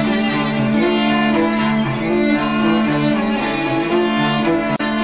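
Background music of bowed strings: a held low note under slowly changing notes.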